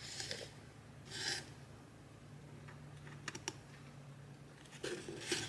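Glued wooden dowel walls of a small log-cabin incense holder being handled and set on a wooden base: light wooden knocks, clicks and scraping in a few short bursts, the loudest cluster near the end, over a steady low hum.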